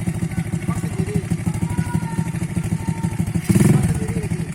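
Small ATV engine running with a fast, steady firing pulse, getting briefly louder about three and a half seconds in.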